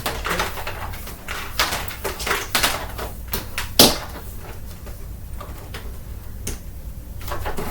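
A string of clicks and knocks of hard objects being handled, the sharpest just under four seconds in, over a steady low hum.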